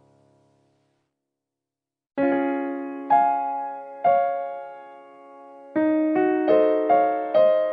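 Background piano music. It is nearly silent for the first two seconds. Then single struck notes ring and fade about a second apart, and they quicken into a short run of notes near the end.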